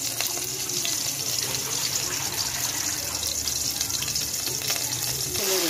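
Ginger-garlic paste sizzling in hot oil in a pan, a steady frying hiss with small crackles, getting brighter near the end.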